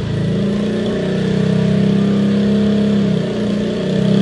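Yamaha Mio 125S scooter's single-cylinder four-stroke engine revved hard through an Akrapovic tri-oval exhaust with its silencer removed. The throttle is held open for about three seconds, eases off briefly, then opens again near the end.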